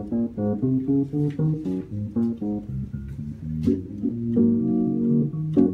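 Yamaha Clavinova CLP-535 digital piano played on its Fender Rhodes–style electric piano voice: a run of short chords over bass notes, then a chord held for about a second near the end.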